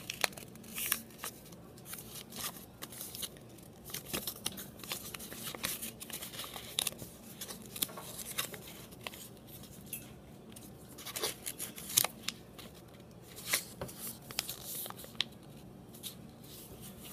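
A sheet of paper being folded and creased by hand: irregular dry rustles and crinkles as fingers press and run along the fold.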